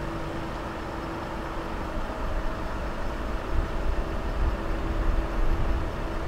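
Street traffic: a steady low vehicle rumble with a faint steady hum, growing a little louder about two seconds in.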